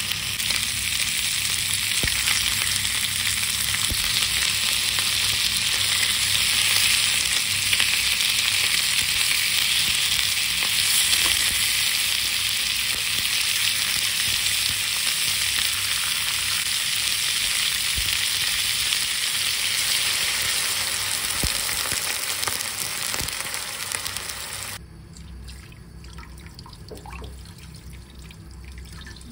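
Chunks of pork belly and pork shoulder sizzling as they sear in a nonstick frying pan: a steady frying hiss with a few small pops and clicks. Near the end the sizzling cuts off abruptly and the sound turns much quieter.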